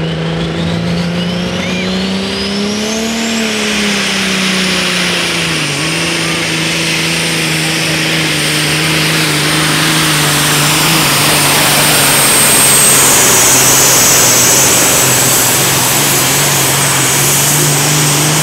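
Super semi pulling truck's diesel engine running flat out under heavy load as it drags a weight-transfer sled, its pitch holding steady apart from a brief dip about six seconds in. A turbocharger whistle rises over the first few seconds, then holds high and steady.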